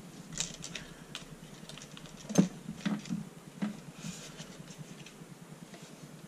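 Light clicks and taps of the Larc M19 BB machine gun's trigger and spring parts being handled and fitted together, with one sharper click about two and a half seconds in.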